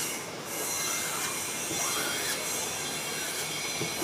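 Rubber squeegee dragged back and forth over the mesh of a screen-printing frame, spreading high-density ink across the stencil. Each stroke gives a short squeaky scrape, about once a second.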